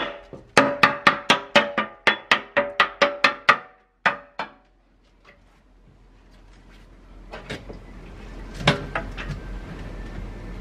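Steel panel radiator struck again and again, ringing metallic knocks about three or four a second, to shake loose the sludge inside before flushing. The knocking stops about four and a half seconds in, and water then rushes from a hose into a bucket, with a couple of single knocks.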